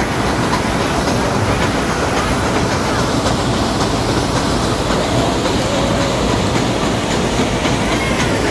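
Nilgiri Mountain Railway toy train running, heard from an open coach doorway: a steady rumble of metre-gauge coach wheels on the rails, with light clicks as they pass over the rail joints.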